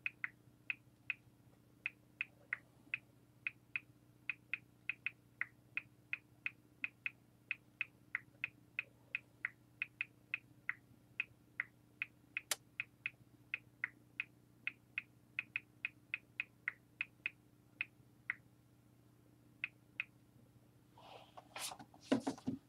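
A small animal chirping: a long run of short, high chirps, about two or three a second, irregularly spaced, stopping about twenty seconds in. A brief rustle follows near the end.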